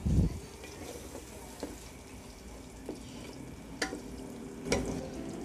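Wooden spatula stirring thick, wet curry gravy in an aluminium pot: sloshing and scraping, with a dull thump at the start and two sharp knocks near the end.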